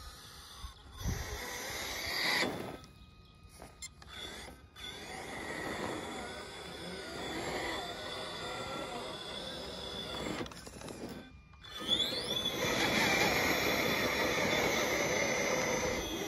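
Motor and drivetrain of a Traxxas TRX-4 Sport RC crawler whining as it is driven over a dirt pile, with a Castle SW4 ESC and Holmes Hobbies Revolver motor. The whine varies with throttle and cuts out briefly twice. About twelve seconds in it rises in pitch and holds louder and higher.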